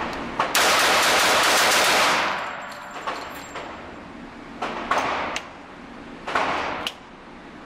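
A rapid string of .45 ACP shots from an FN FNP-45 pistol, fired as fast as possible in about a second and a half, ringing in an indoor range. Two shorter, softer bursts of noise follow a few seconds later.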